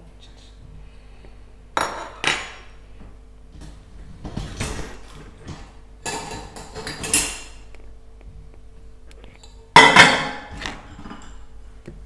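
Ceramic cups, bowls and steel cutlery clinking and clattering against each other and the wire racks of a dishwasher as they are handled, in several separate clatters, the loudest about ten seconds in.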